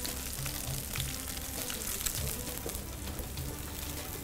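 Onion sizzling in oil in a frying pan over medium heat: a steady, even frying hiss.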